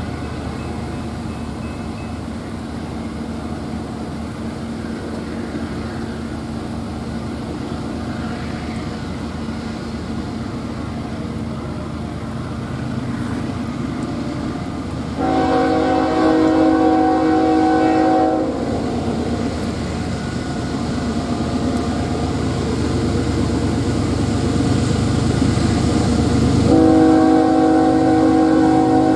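Approaching diesel locomotive, its engine rumble growing louder as it nears. Its multi-note air horn sounds one long blast about halfway through and starts another near the end: the warning for the grade crossing.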